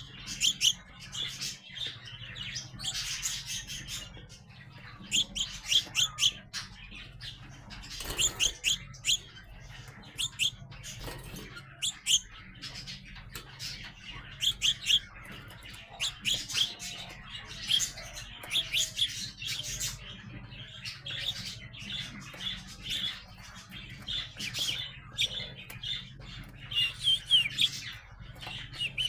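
Young sparrows chirping: quick runs of short, high chirps every second or so, over a steady low hum.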